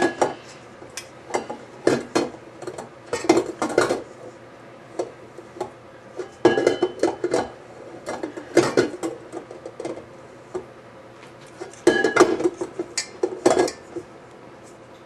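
KitchenAid stand mixer's stainless steel bowl knocking and clinking as it is handled and chicken is scraped from the flat beater, in scattered clusters of clatter with brief metallic rings; the mixer itself is not running.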